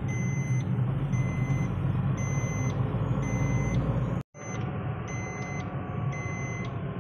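A car's in-cabin warning chime beeping steadily about once a second over the hum of the engine and tyres, heard from inside the moving car. The sound drops out for an instant a little past halfway.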